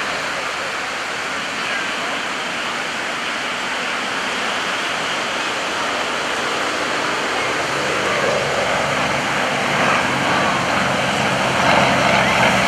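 Two radial-engined aerobatic trainers, a Yak-52 and a Nanchang CJ-6, flying in formation: at first a steady rushing noise with a faint drone. About two-thirds of the way through, the propeller-engine drone grows louder and clearer as the pair comes closer.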